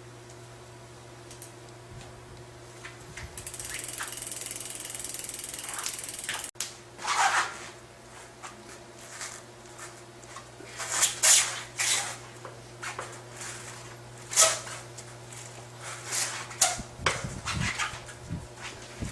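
Handling noises from bicycle brake work: a few seconds of steady hiss, then after an abrupt cut a string of short knocks and clicks, over a steady low hum.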